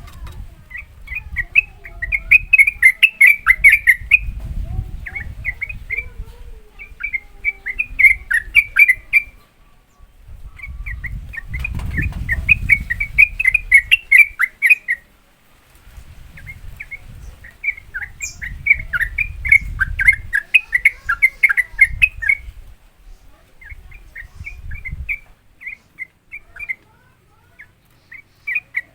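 Yellow-vented bulbul singing its fast 'ropel' song: quick runs of chattering notes, each phrase a few seconds long, with short pauses between.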